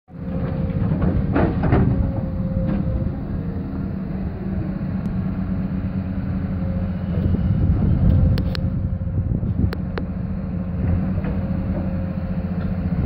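Komatsu tracked excavator's diesel engine running with a steady drone as it works. About a second and a half in, soil rattles down from the bucket into the steel tipper trailer, and a few sharp knocks come later.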